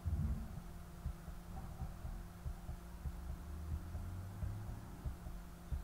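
Low steady hum with soft, irregular low thumps.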